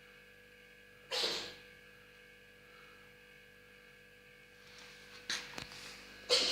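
Domestic cat sneezing twice, sharply, about a second in and again at the very end, with faint breathy noise and small clicks before the second sneeze. A faint steady mains hum sits underneath.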